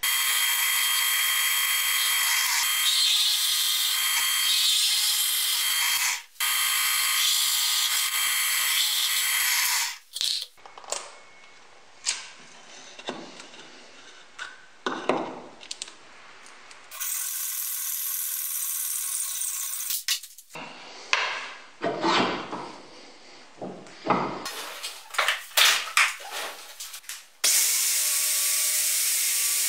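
A drill press drills through stacked plywood plates with a loud, steady noise for the first ten seconds. Knocks and clatter follow as the parts are handled, with another short steady stretch of machine noise. Near the end a belt-grinder attachment on an angle grinder starts running with a steady whine.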